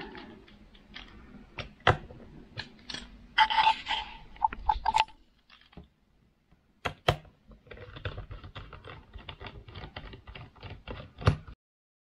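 Precision screwdriver working screws out of an HP Notebook 14's plastic bottom case: scattered clicks and scrapes, then a run of quick, even clicks of about five a second that stops abruptly near the end.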